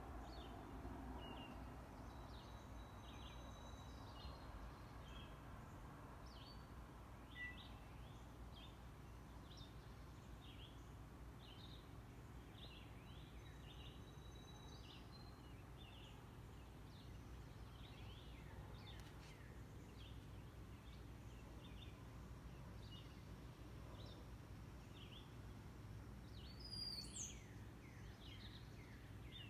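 Faint birds chirping: many short, repeated calls throughout, with a brief louder high call near the end, over a steady low background hum.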